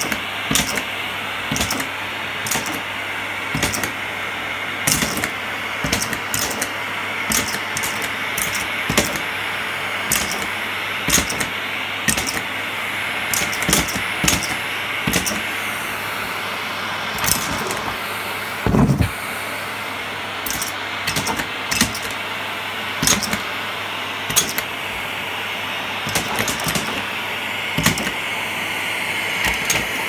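Canister vacuum cleaner running steadily on carpet, with frequent sharp clicks and rattles and one heavier knock about two-thirds of the way through.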